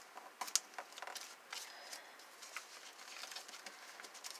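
Paper being folded and creased by hand around a piece of cardboard tube: soft crinkling and rustling with scattered sharp little clicks, the sharpest about half a second in.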